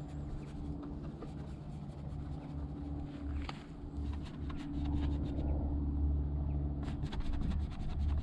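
Brush working oil paint on a canvas, scratching and dabbing, with a run of quick taps near the end, over a steady low hum.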